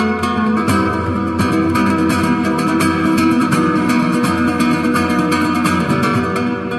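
Background music: a plucked guitar piece with a steady rhythm of picked notes.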